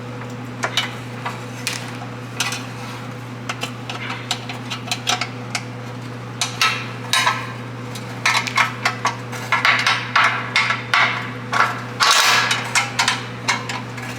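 Irregular sharp metallic clicks and clinks of bolts, nuts and a steel bracket being handled and fitted during a bumper repair, sparse at first and much busier in the second half, over a steady low hum.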